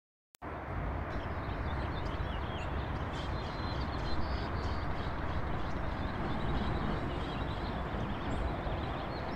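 Outdoor ambience starting about half a second in: a steady low rushing noise with faint, scattered high chirps above it.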